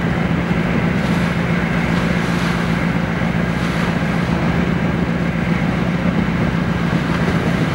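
A pilot boat's engines drone steadily with a constant low hum as the boat holds alongside a ship's hull. Water rushes and churns under it.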